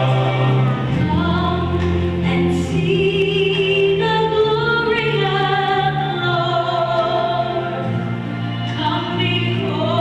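Choral music: a choir singing long held notes that move from chord to chord, over a low sustained accompaniment.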